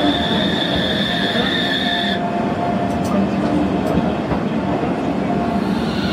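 Utsunomiya Light Rail HU300-series low-floor tram rounding a sharp curve at low speed, its wheels squealing on the rails in a steady high tone. The squeal breaks off about two seconds in and comes back near the end, over a constant rumble of wheels and running gear with a few light clicks in between.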